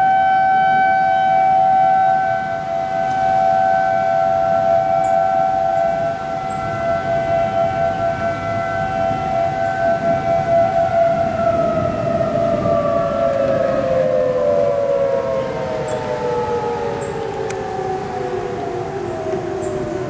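Outdoor tornado-warning sirens sounding a steady tone at two close pitches at once, wavering in loudness. About eleven seconds in they begin to wind down, the pitch sliding steadily lower.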